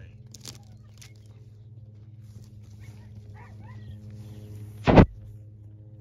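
Faint, short squeaky whimpers from a Pudelpointer puppy midway, over a steady low hum, with one short loud bump about five seconds in.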